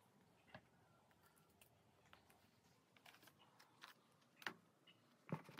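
Very quiet handling of fabric and hair: faint scattered ticks and soft rustles as the socks and elastic bands of heatless curls are undone. Two slightly louder taps come near the end.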